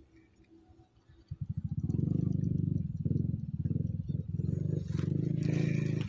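Small motorcycle engine running close by: it comes in about a second in, swells over the next half second and then runs steadily with an even, fast low pulse.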